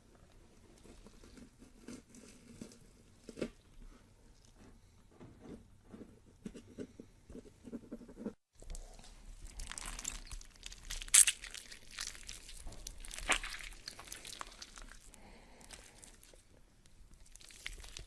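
Two horror sound effects in a row: first a quiet, irregular crackling with scattered clicks, then, after a short silent break, a louder crunching and tearing with two sharp cracks standing out.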